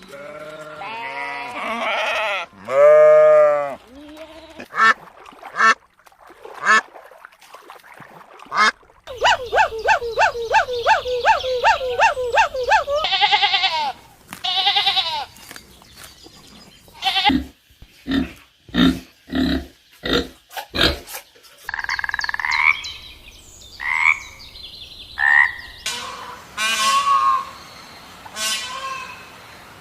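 A run of different animal calls that changes abruptly every few seconds: drawn-out pitched calls, then a fast trill of repeated notes, a string of short low pulses, and higher chirping calls near the end.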